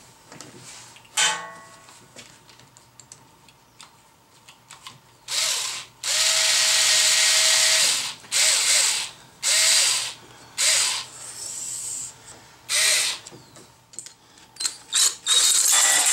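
A power drill/driver runs in six short bursts, each spinning up quickly to a steady whine; the longest lasts about two seconds. It is driving a screw back into a conduit hanger clamp. Small clicks and knocks of parts being handled come before the bursts and again near the end.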